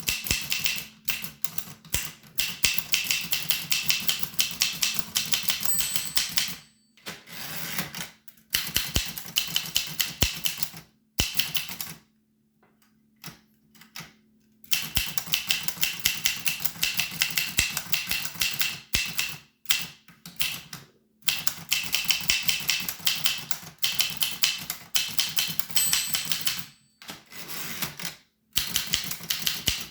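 1895 Williams No. 1 typewriter being typed on: quick runs of keystrokes clacking, broken by short pauses and a longer quiet gap about halfway through.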